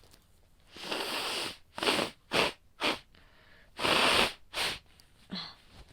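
A woman with a cold clearing her runny nose. There is a long nasal blow about a second in, then three short quick sniffs, another long blow and a short one, and a brief voiced sound near the end.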